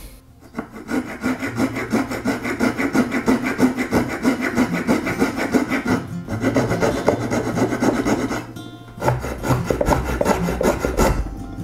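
A narrow hand saw blade cutting hard wenge wood inside a plane body's throat, in quick back-and-forth strokes, with short pauses about six seconds in and again near nine seconds.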